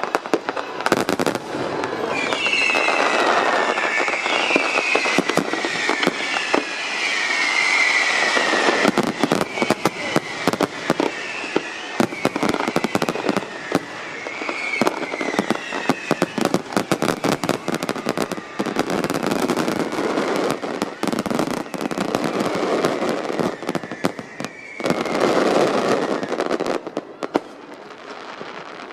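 Aerial fireworks display: a dense, continuous run of bangs and crackling, with wavering high whistles through roughly the first half.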